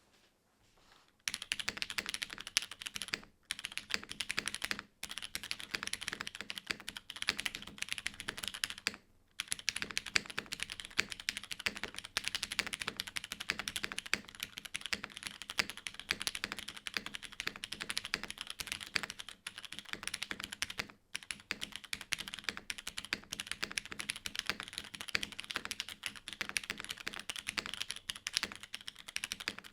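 Fast continuous typing on a daji Ocho Cuatro custom mechanical keyboard. It is a top-mount build with an aluminium plate, stock Cherry MX Black linear switches (1.2 m Ultraglides) on TX 60g springs with films and no lube, and GMK keycaps. The typing starts about a second in and runs on with a few short pauses.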